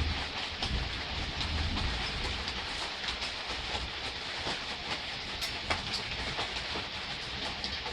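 Gentle rain falling steadily, with scattered sharp drips ticking now and then over a low rumble.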